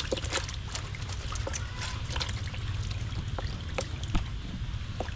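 Water trickling and splashing, with many irregular small ticks and splashes over a steady low rumble.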